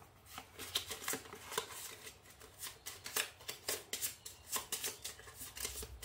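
Board-game cards and pieces being handled on a tabletop: a string of light, irregular clicks and taps with soft card slides.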